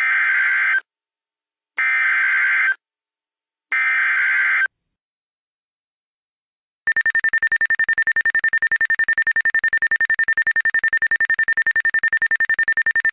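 Emergency Alert System SAME header: three roughly one-second bursts of warbling digital data tones, a second apart. After a pause of about two seconds comes a high alert tone that pulses rapidly and steadily, announcing a new warning.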